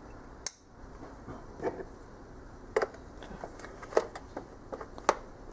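Hard plastic clicks and handling noise as a phone holder is fitted onto a drone's radio transmitter, with about five sharp clicks roughly a second apart.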